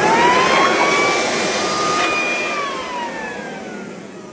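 Corded electric leaf blower running: a loud rush of air with a motor whine that rises in pitch during the first second, holds, then falls away as the blower winds down over the last two seconds.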